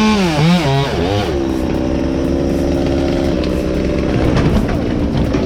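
Two-stroke chainsaw engine running, its pitch swinging up and down in the first second and then held steady at speed for a couple of seconds.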